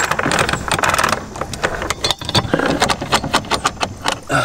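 Anchor chain clinking and rattling in quick irregular clinks as it is hauled through the hands link by link. The chain is being cleared of a tangle: its pile in the locker fell over on itself and jammed when the anchor was let go.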